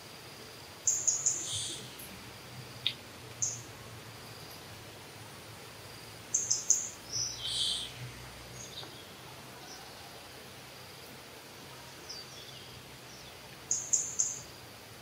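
A bird calling: short runs of three or four quick, high chirps, each followed by a slightly lower note, repeated three times several seconds apart.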